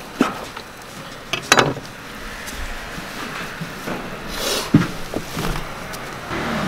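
Kitchen knife cutting through fried food onto a wooden cutting board, with a few sharp knocks in the first two seconds. Later a scrape and a single knock as the slices are gathered and moved to a steel tray.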